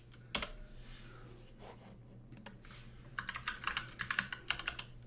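Typing on a computer keyboard: a single key click just after the start, then quick runs of key clicks from about halfway through until near the end.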